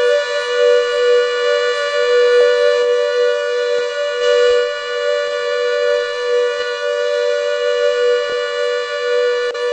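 CS8 siren sounding a steady tone made of two pitches at once, held without rising or falling.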